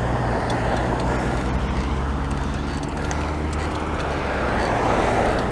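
Wind rumbling on a head-mounted action-camera microphone while cycling along a road, over road and traffic noise; the noise swells near the end as a vehicle passes.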